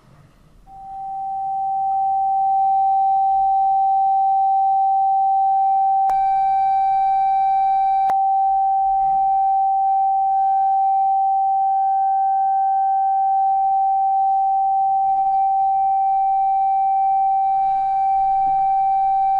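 Loudspeaker sealed inside a glass jar playing a steady, pure mid-pitched tone, with air still in the jar. The tone swells in over the first two seconds and then holds level, with two faint clicks about 6 and 8 seconds in.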